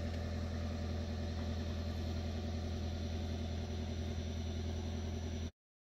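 Ford Maverick Hybrid's 2.5-litre four-cylinder engine idling steadily, cutting off suddenly near the end.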